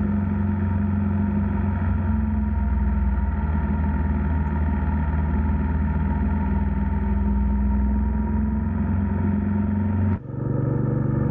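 Motorcycle engine running at a steady cruising speed, a constant low drone. About ten seconds in it cuts off abruptly and gives way to a different, similar drone.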